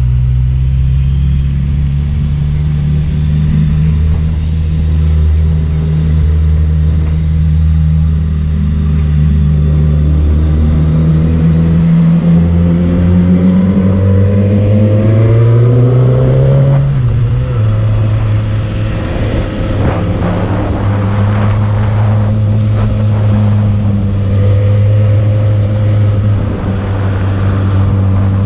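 Motorcycle engine pulling uphill, a steady note at first, then climbing in pitch as it revs up and dropping sharply at an upshift just past the middle, after which it runs steady again.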